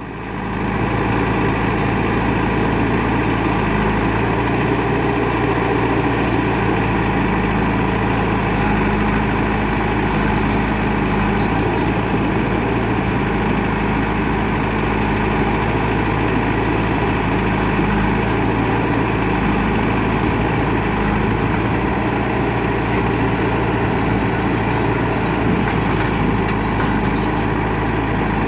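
Heavy diesel engines of a JCB backhoe loader and a Swaraj tractor running steadily at a low, even speed. The sound fades in over the first second.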